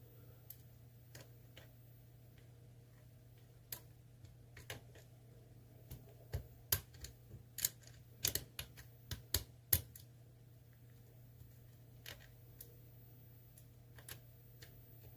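Lock picks clicking and tapping in the keyway of an ASSA Twin Combi cylinder, a series of small, sharp, irregular metal clicks that bunch together in the middle, over a faint steady hum.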